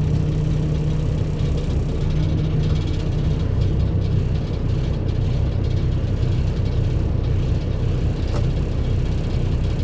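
Heavy truck under way: a steady low engine drone and road rumble, with the engine's note dropping about three seconds in. A short click sounds about eight seconds in.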